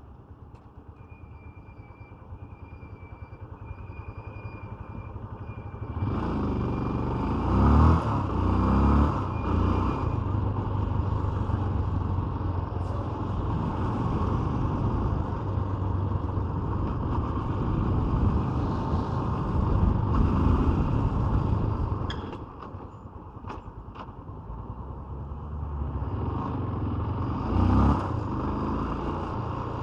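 Yamaha Fazer 250's single-cylinder engine heard from the rider's seat, ticking over quietly at first. About six seconds in it pulls away, revving up through the gears, then runs steadily through town. It eases off around two-thirds of the way through and accelerates again near the end.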